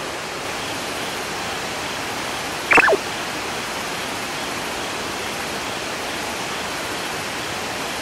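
River water rushing steadily. About three seconds in, one short call falls in pitch.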